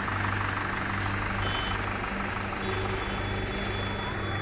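A heavy vehicle engine running steadily, a low even hum.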